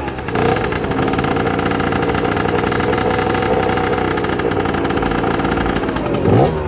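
Sherco 50cc two-stroke motorcycle engine with its stock exhaust, held at a steady, raised engine speed, then given a quick blip of the throttle near the end.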